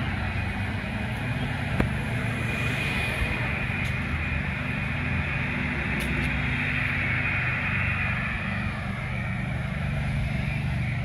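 Steady outdoor street ambience: a low, even rumble typical of traffic on a residential street, with a few faint clicks.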